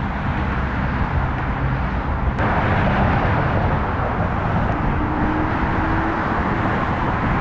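Steady city street traffic noise, with a vehicle engine humming low for the first couple of seconds, then a broader rush of passing traffic.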